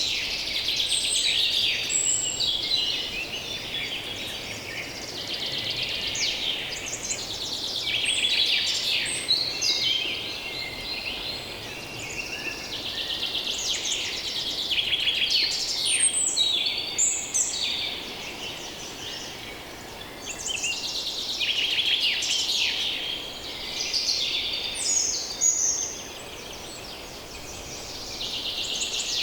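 A dense chorus of many songbirds singing and calling at once: overlapping chirps, trills and quick whistled sweeps that swell and ease off in waves, over a faint steady low background noise.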